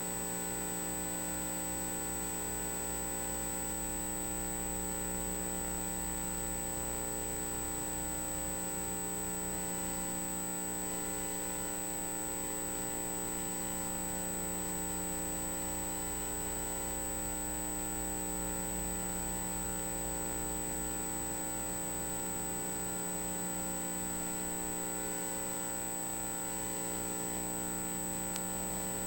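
Steady electrical hum from the ultrasound scanner's electronics, with a faint high-pitched whine over it. It stays even throughout.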